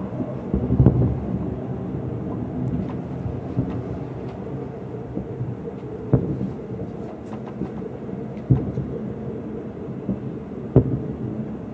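Fireworks shells bursting overhead at a distance: a quick cluster of booms about a second in, then single sharp bangs every two seconds or so, over a steady low rumble.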